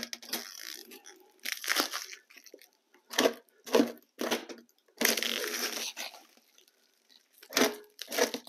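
Clear plastic stretch wrap being peeled and torn off a flat metal stand top, in a string of short crinkling, tearing bursts with a longer one about five seconds in.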